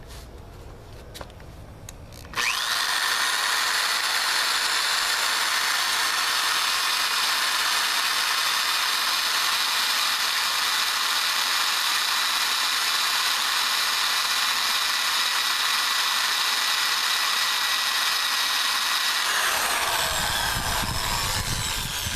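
Electric drill boring through the thick steel of a VW bus bumper. It starts abruptly a couple of seconds in and runs steadily with a high-pitched whine, the sound changing a few seconds before the end.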